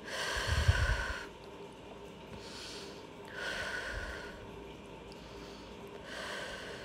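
A woman's deep breathing through the nose: three audible breaths about three seconds apart, the first the loudest.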